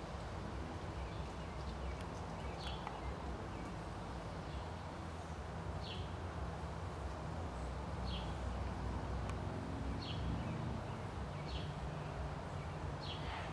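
A bird calling with a short, high, falling note, repeated about every two seconds over a steady low outdoor rumble.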